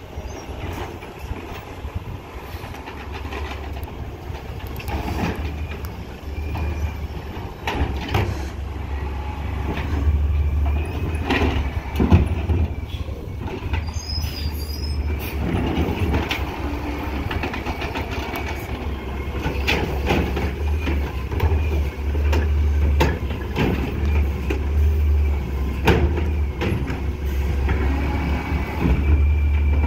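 Autocar ACX garbage truck with an Amrep automated side-loader, its natural-gas engine running and getting louder as it approaches. The side arm lifts and dumps a cart, with hydraulic running and repeated knocks of the cart and arm.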